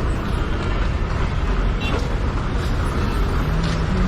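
Steady rumble of road vehicles and traffic, with no single engine standing out.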